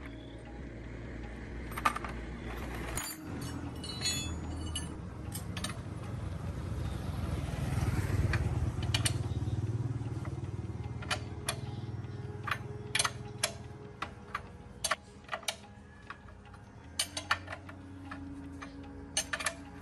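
Metal parts and hand tools clinking and tapping in irregular bursts, over a low rumble that swells and fades away through the middle.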